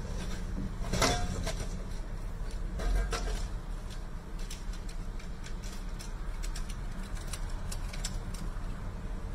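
A Chevrolet Silverado pickup strikes and knocks over a yellow metal pipe bollard: a sharp crack about a second in, then a heavy thud about two seconds later, over the steady low rumble of idling vehicle engines.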